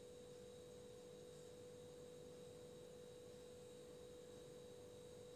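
Near silence, with only a faint steady hum at one pitch.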